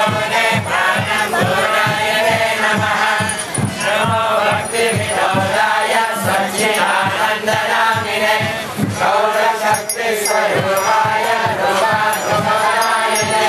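Devotional group chanting (kirtan) by a crowd of voices, carried on a steady drum beat of about three strokes a second with jingling hand cymbals.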